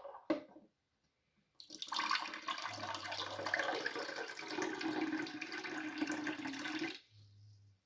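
Water running from the plastic spigot of a glass drink dispenser into a drinking glass for about five seconds. The note rises slightly as the glass fills, and the flow cuts off suddenly. A short knock comes just before the pouring starts.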